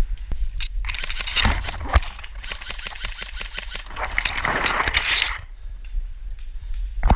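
A sharp click, then a long spell of rustling and scraping full of small irregular clicks, from about one second in to about five and a half seconds in, over a steady low rumble, with a short burst of the same rustling near the end.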